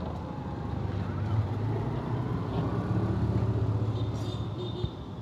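A motor vehicle engine running nearby, a low steady drone that grows louder through the middle and eases off near the end.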